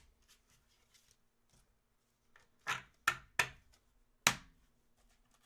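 Hard plastic toploader card holders clacking together and knocking on a wooden tabletop as a stack is gathered up: a few clacks about three seconds in and a sharper knock just after four seconds, over a faint steady hum.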